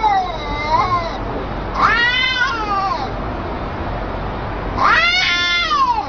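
Domestic cats in a face-off yowling: three long, drawn-out yowls, each rising and then falling in pitch, a territorial threat display.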